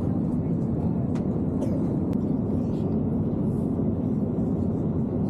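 Steady low rumble of an airliner's cabin in flight: jet engine and airflow noise, unchanging throughout.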